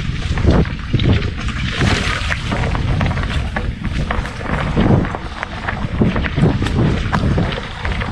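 Riding noise from a Biktrix Juggernaut Ultra full-suspension e-bike on a rough trail: wind buffeting the helmet-mounted action camera's microphone, tyre rumble, and irregular knocks and rattles as the bike goes over bumps.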